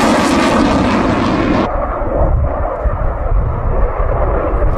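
Jet noise of a Sukhoi Su-27 fighter's two turbofan engines passing in flight: a loud, hissing rush that suddenly loses its high end about two seconds in, leaving a deep rumble.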